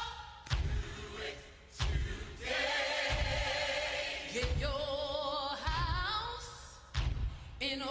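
Gospel music: voices singing together in held, wavering notes over a low, regular thumping beat.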